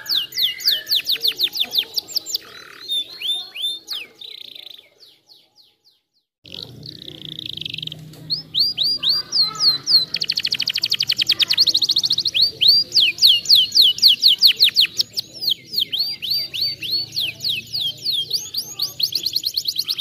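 Domestic canary singing: long runs of quick, repeated, high whistled notes that sweep downward, with a very fast rolling trill about ten seconds in. The song drops out for about two seconds around five seconds in.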